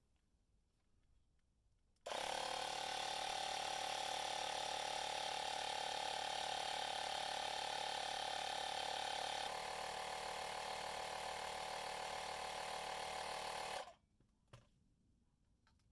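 Portable electric tyre inflator (small air compressor) starting abruptly and running with a steady mechanical hum for about twelve seconds while it pumps up a winter tyre, its note shifting slightly partway through, then cutting off.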